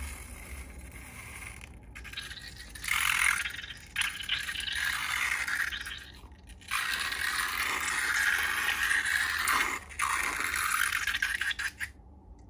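Scraping and rattling as slime-making materials are handled, in several stretches of a few seconds with short pauses between.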